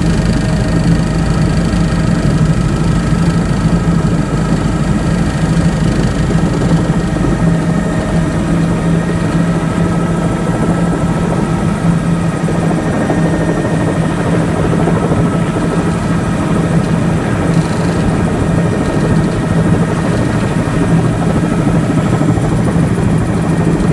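Helicopter engine and rotor running steadily from inside the cabin during a low descent, a loud constant drone with a strong low hum; the deepest rumble drops away about seven seconds in.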